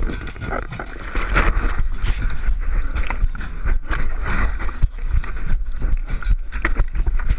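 Wind rumbling on the microphone, with irregular knocks and rustles from the camera being handled.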